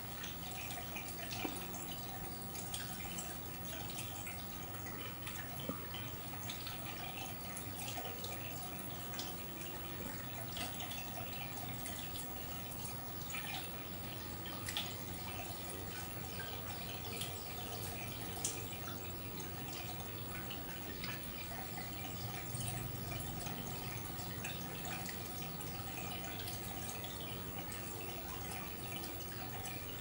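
Aquarium water trickling and dripping steadily, with a scatter of small drips throughout, over a faint steady hum.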